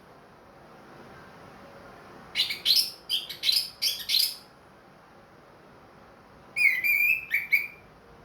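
Orange-headed thrush (anis merah) singing: a quick run of about six sharp, high notes a couple of seconds in, then a whistled phrase with a dipping tone and quick trills near the end.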